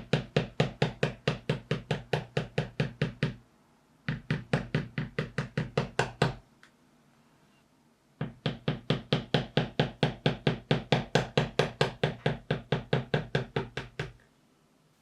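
Rapid, evenly spaced sharp knocks, about five a second, as the corners of a leather piece are rounded off, in three runs with short pauses between them.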